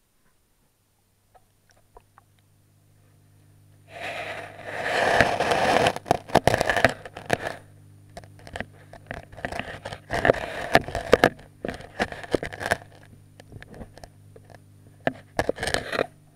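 Handling noise from a camera submerged in an aquarium: bursts of scraping and sharp knocks as it is pushed against rock and glass, three times, over a low steady hum that starts about a second in.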